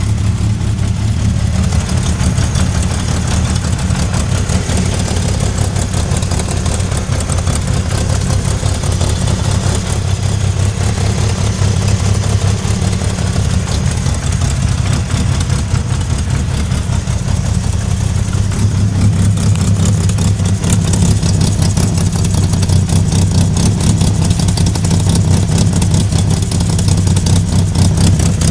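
1998 Mitsubishi Eclipse RS engine running with a steady, rapid knocking, which the owner believes is coming from the transmission.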